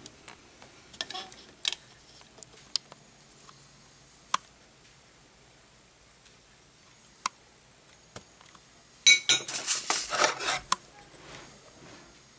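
A metal spoon clinking and scraping against an aluminum plate while a salt mixture is spooned onto it: scattered single clinks, then a louder burst of clattering about nine seconds in.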